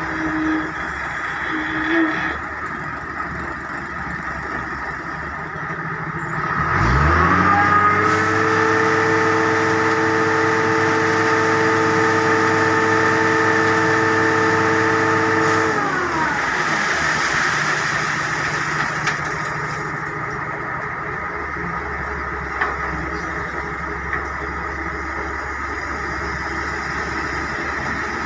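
Heavy diesel engine idling, then revving up about six seconds in, holding a high steady speed for about eight seconds, and dropping back to idle.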